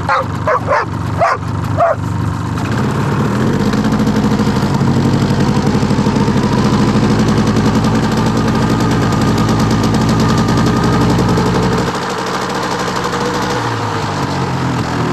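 A dog barking several times in the first two seconds, then an engine running steadily, rising in pitch as it comes up and easing back about twelve seconds in.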